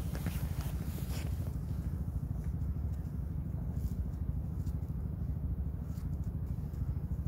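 Steady low outdoor rumble, with a few faint footsteps on snowy pavement in the first second or so.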